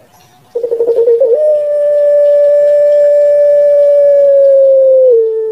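Puter pelung, a Barbary dove kept for its long call, cooing: a short rolling opening about half a second in, then one long, level note held for about four seconds that steps down slightly in pitch near the end.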